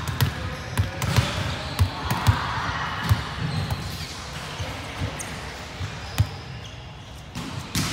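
Volleyballs thudding as they are struck and bounce on a hardwood gym floor in a large sports hall: about a dozen irregular sharp knocks over a steady din of voices.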